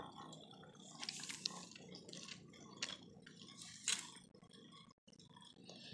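Homemade Beyblade spinning top spinning in a plastic Beyblade stadium: faint, with scattered light ticks, the sharpest about four seconds in.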